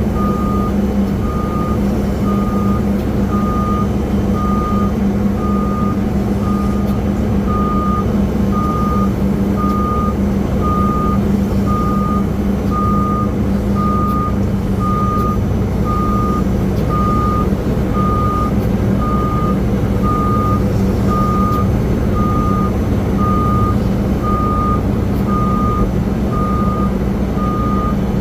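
Reversing alarm of an aircraft pushback tug, beeping steadily about once a second over a continuous low engine drone.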